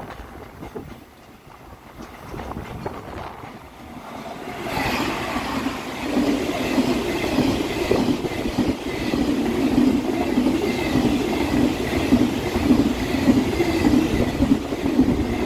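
Electric trains running on the tracks close by: fairly quiet for the first few seconds, then from about five seconds in a louder, steady rail running noise with a thin high whine.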